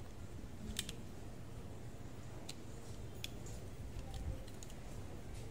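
Scattered light metal clicks as a steel tool fitted over the shaft of a Toyota Hiace aircon blower motor is shifted and worked, the clearest click about a second in, over a steady low background rumble.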